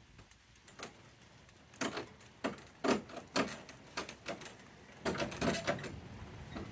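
A string of irregular knocks and clunks of hard objects being handled, with a denser run of knocks about five seconds in.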